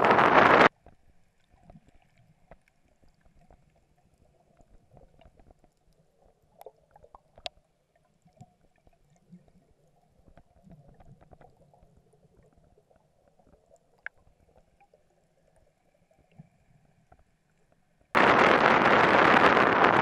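Wind buffeting the microphone aboard a moving boat cuts off in the first second, giving way to a long stretch of near silence: faint, muffled underwater sound with a couple of tiny clicks. The wind noise comes back abruptly about two seconds before the end.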